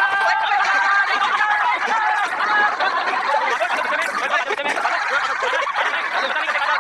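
High-pitched voices laughing and chattering without a break.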